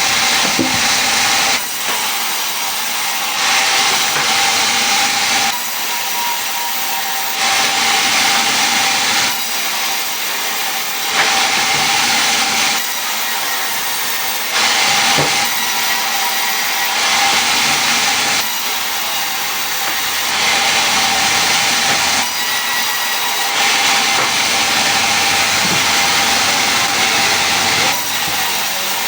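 A power tool cutting wood in repeated passes: the cutting noise swells and eases about every two seconds over a steady motor hum.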